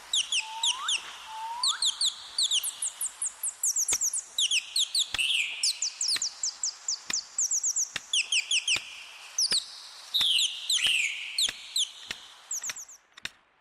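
Small birds chirping: fast runs of high, quickly falling notes repeated over and over, with two short rising notes about a second in. Faint sharp clicks come at fairly even spacing underneath.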